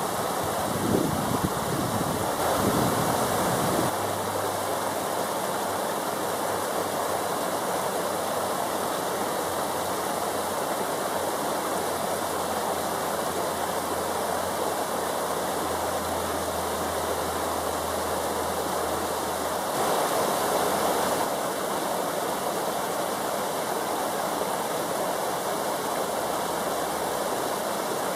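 Skykomish River water rushing steadily over rocks in a shallow riffle, a continuous even wash, swelling slightly louder for a moment about twenty seconds in.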